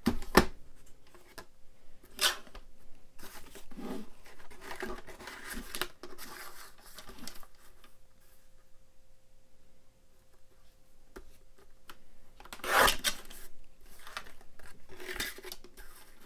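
A sliding-blade paper trimmer set down with a knock, then paper brushed and slid into place on its base. Later the blade carriage is drawn along the rail, slicing through patterned paper in one loud scrape, with a shorter scrape just after it.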